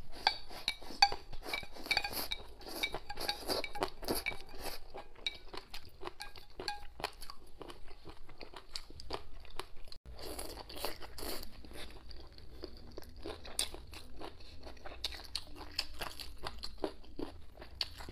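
Close-miked mouth sounds of eating: drinking and swallowing from a bowl of spicy noodle broth, then, from about ten seconds in, wet crunchy chewing of boneless chicken feet and cucumber, with dense small clicks and crackles.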